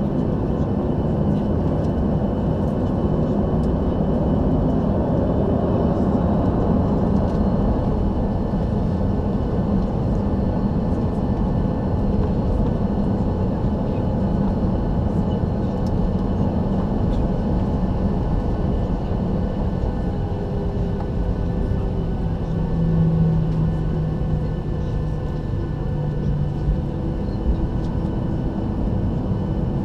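Steady cabin noise of a Boeing 737-800 with its CFM56-7B jet engines running: a continuous rumble with a low steady hum that grows stronger for a few seconds about two thirds of the way through.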